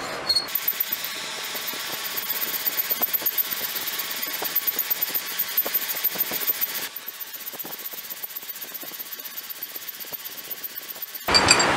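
Hand file rasping across the end of a small steel bar held in a vise, in quick, evenly repeated strokes. The strokes turn quieter about seven seconds in.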